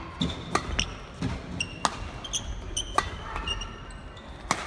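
Badminton rally: rackets striking the shuttlecock in several sharp hits at an uneven pace, with short high squeaks of court shoes on the floor between them.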